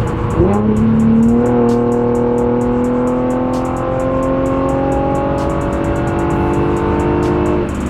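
Infiniti G37's 3.7-litre V6 with aftermarket headers accelerating under load, its note jumping up about half a second in, then climbing slowly and steadily before dropping near the end. It runs without the exhaust tick it had before: the leak at the stripped header stud has been fixed.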